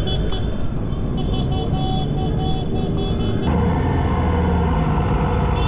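Motorcycle engines running in a dense procession, with horns beeping over them in quick repeated bursts. About three and a half seconds in the horns stop and the sound switches abruptly to a fuller engine note that rises and falls.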